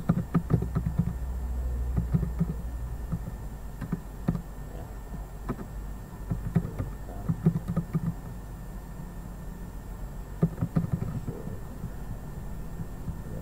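Computer keyboard typing in short, irregular runs of keystrokes, over a steady low hum.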